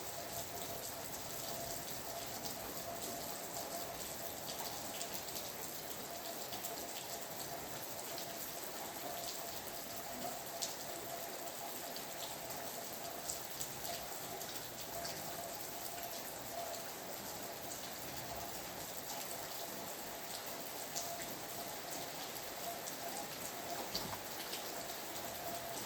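Steady rain falling, with many individual drops ticking sharply on a surface. A faint steady tone sits underneath.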